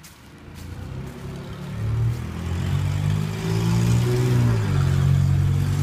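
A motor vehicle engine running close by, growing louder over the first two seconds and then holding steady, its pitch dipping and shifting briefly about four seconds in.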